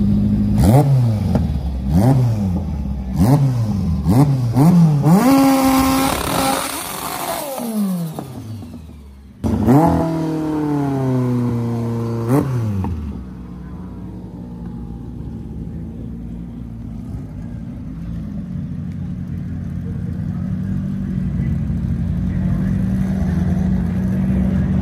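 A race car's engine revving hard through quick gear changes, its pitch climbing and dropping back about once a second, then holding high revs before falling away. After an abrupt jump about nine seconds in, the revs fall again, with a sharp crack near the middle, and the engine settles into a steady low drone.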